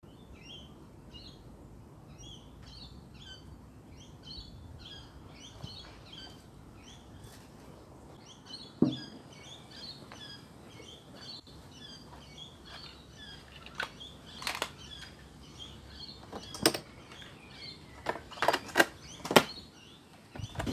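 Small birds chirping over a low hum of background noise, with several sharp clicks and knocks in the second half, the last ones from the keys of an old tape recorder being pressed.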